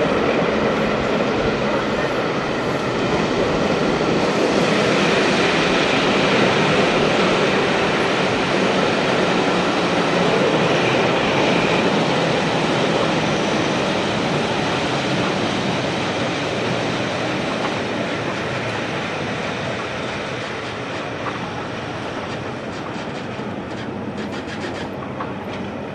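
Passenger train running along the track, heard from an open carriage window: a steady rumble of wheels on rails that grows quieter over the last ten seconds, with a few faint clicks near the end.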